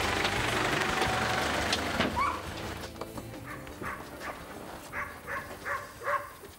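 A pickup truck's engine running for the first couple of seconds, then falling away. After that a dog barks in a string of short yaps, about two a second.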